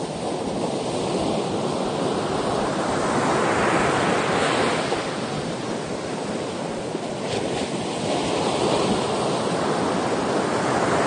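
Ocean waves surging and washing on the shore, a continuous wash that swells twice as waves come in.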